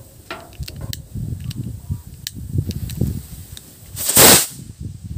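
Lit fuse of a kwitis, a Filipino stick rocket, fizzing with scattered sharp crackles and pops. About four seconds in comes a loud rushing hiss, about half a second long, as the rocket launches off its stick.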